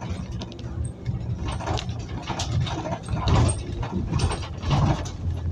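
Inside a Scania OmniCity city bus: the engine runs with a steady low rumble while interior panels and fittings rattle in irregular bursts.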